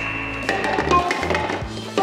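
Background music with a steady drum beat and a repeating bass line.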